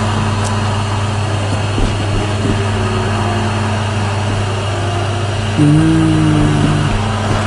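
Steady, loud hum and whoosh of the electric blower fans that keep airblown Halloween inflatables up. A short, low, steady tone rises over it about two thirds of the way through for a second and a half.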